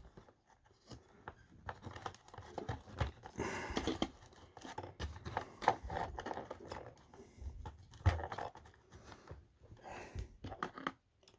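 Electrical cords being handled and fed through a slot in a sewing machine's housing: irregular rustling, scraping and light clicks of wire against the machine.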